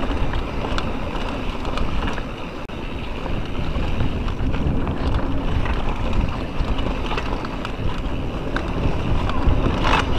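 Mountain bike riding a dirt single track: steady rumble of tyres and wind buffeting the camera microphone, with frequent small rattles and clicks from the bike over the rough ground.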